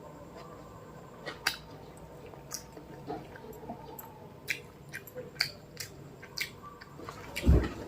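A person chewing food close to the microphone, with scattered small wet clicks and smacks, and a louder low thump near the end.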